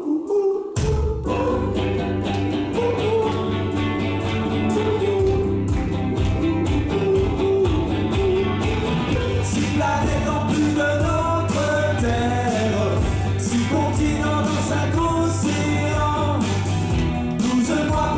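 Live pop-rock song: a male voice sings over electric guitar and keyboard, and a bass line and steady beat come in about a second in.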